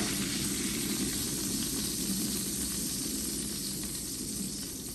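Chicken pieces frying in hot oil in a pan, a steady sizzle that eases off a little near the end.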